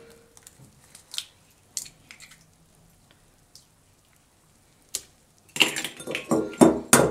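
Eggs being cracked and separated: a few faint taps and clicks, then, about five and a half seconds in, a quick run of sharp knocks of shell against the rim of a glass bowl, with a brief ring of the glass.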